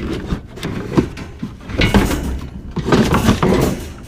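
Tools and metal junk clattering and scraping as a small Homelite chainsaw is dragged out from among them, with several sharp knocks.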